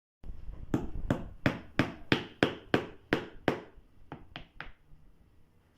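Hammer blows, about three a second, likely driving nails into a pouf's frame during a repair: nine even strikes, then three lighter taps after a short pause.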